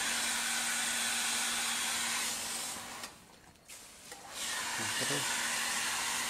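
Water jetting from a hose nozzle fed by an electric water pump: a steady hiss of spray with a faint motor hum under it. The spray stops for about a second and a half just before the middle, then starts again.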